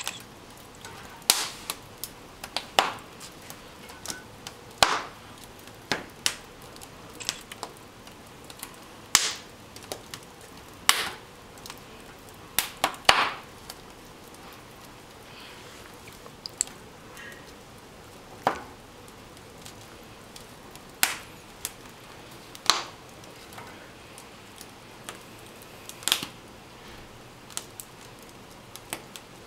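Wood fire crackling in an open fireplace: sharp, irregular pops and snaps every second or two, sometimes in quick clusters of two or three.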